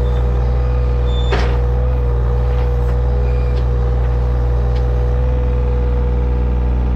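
Digging machine's engine running steadily under load, with a steady whine over the engine hum and a sharp metallic knock about a second in.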